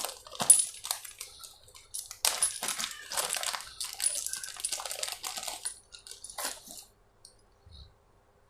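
Plastic packaging rustling, with small hard parts clicking and clinking as they are handled; it stops about two-thirds of the way through.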